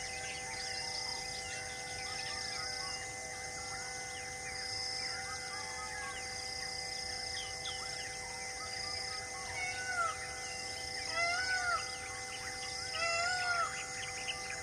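Forest ambience: many birds chirping and calling over a steady insect drone that pulses about once a second. From about ten seconds in, a louder bird gives three arching calls.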